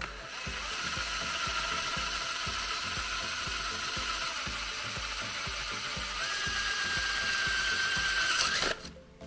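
Cordless drill running steadily, its greased bit cutting into an aluminium oil pan. The drill's whine steps up in pitch about six seconds in, and the drill stops near the end.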